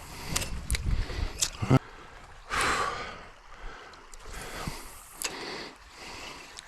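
A person breathing out audibly close to the microphone, one louder exhale about two and a half seconds in and softer ones after, with knocks and low rumble of handling in the first two seconds.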